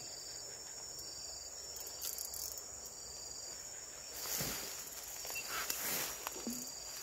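Insects chirring in a steady, high-pitched chorus, with two brief noises about four and six seconds in.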